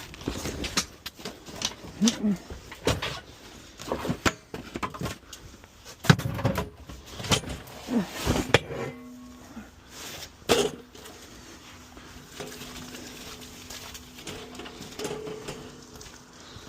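Irregular knocks and clanks of a hand dolly being handled to move scrap HVAC equipment, with a few short grunts. A steady low hum comes in about nine seconds in, and the knocking dies away soon after.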